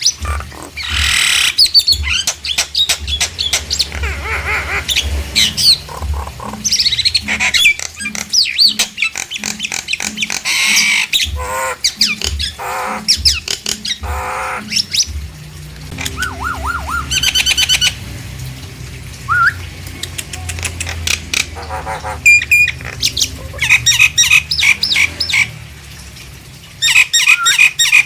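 Nias hill myna calling: a varied, loud run of whistles, squawks and chattering notes with short pauses between phrases.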